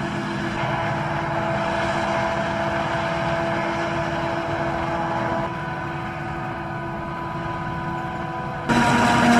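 Claas Jaguar 880 forage harvester chopping corn, its engine and chopping drum running steadily with several held tones, alongside a tractor pulling the forage wagon. The sound shifts abruptly about five and a half seconds in and turns louder just before the end.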